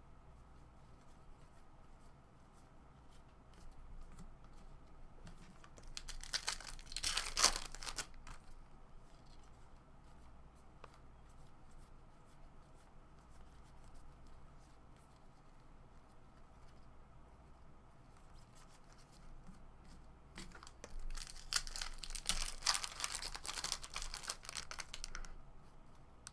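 Foil wrapper of a 2017 Topps Series 1 baseball card pack being torn open and crinkled, in two bouts: a short one about a quarter of the way in and a longer one in the last part.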